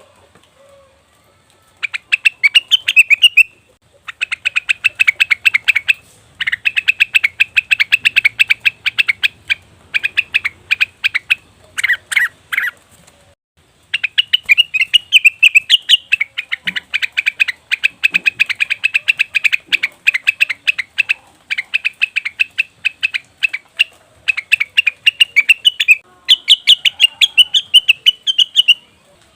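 Blue-winged leafbird (cucak wilis) calling in fast chattering runs of short, high notes, each run lasting one to two seconds with brief pauses between. It starts about two seconds in and breaks off for about a second around the middle. It is a call used to lure the species.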